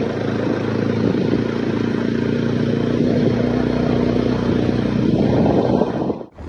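Motorcycle engine running steadily under way, a constant low drone with road and wind noise; the sound drops out abruptly near the end.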